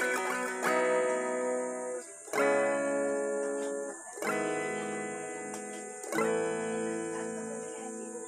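SQOE Stratocaster-style electric guitar played clean, strummed chords struck about every two seconds, each left to ring and decay, the last one fading out.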